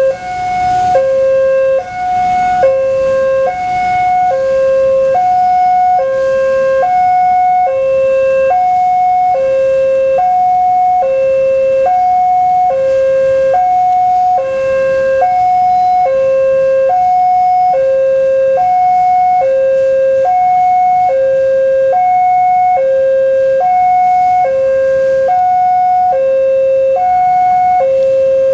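Indonesian railway level-crossing warning alarm sounding: an electronic two-tone signal alternating steadily between a low and a higher tone, about one high–low pair a second, warning that a train is approaching.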